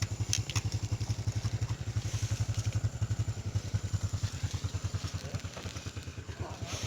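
Motorbike engine idling with an even low putter that slowly fades.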